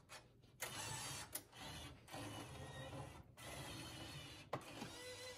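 IGT Double Diamond Deluxe slot machine powering up, its mechanism whirring in several runs of a second or so each, broken by short pauses and a few clicks. A steady tone comes in near the end.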